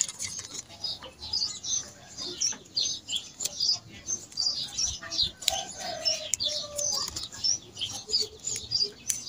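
Small birds chirping busily in the background, several short high chirps a second, with the crinkle and rustle of satin ribbon being folded and pinched by hand.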